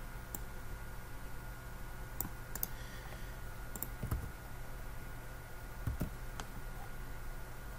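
A handful of scattered computer mouse and keyboard clicks, sharp and short, over a faint steady hum.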